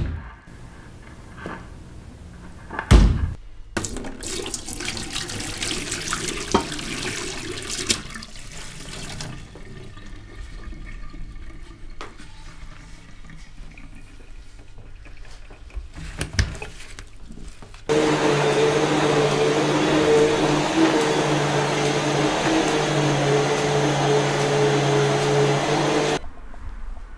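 An old-style upright bag vacuum cleaner runs with a steady motor hum for about eight seconds in the second half, then switches off shortly before the end. Earlier come two loud thuds and a stretch of rushing noise.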